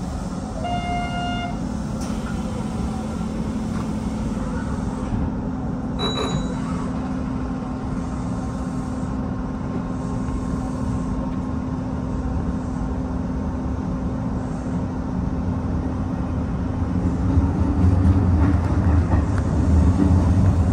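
Hanshin Railway electric train running, heard from inside the car: steady rail and running noise with a low motor hum, and a brief tone about a second in. The low rumble grows louder about 17 seconds in.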